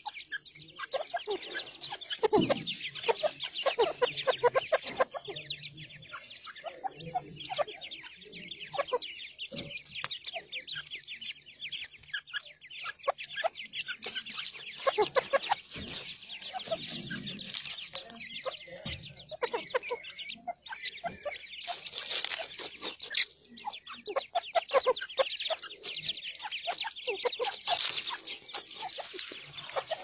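Grey francolins with their chicks: a continuous, rapid high-pitched peeping from the chicks, with scattered lower clucking calls from the adult birds.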